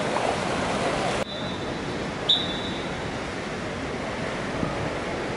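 Outdoor thermal-pool ambience: bathers' voices over a steady wash of water noise, broken off by an abrupt cut to a quieter steady rushing with a brief high chirp about two seconds in.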